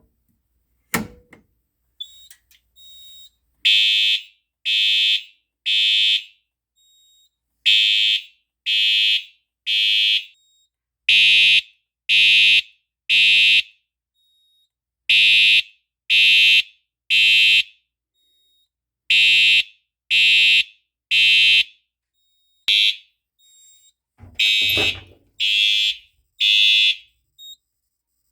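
Faraday 2834 fire alarm horn sounding in the temporal code-3 pattern: three loud horn blasts about a second apart, a pause, then three more, repeating.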